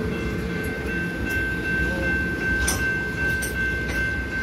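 Railroad passenger coaches rolling past: a steady rumble of wheels on the rails with a few sharp wheel clacks midway. Above it a level-crossing warning bell rings on one steady high tone.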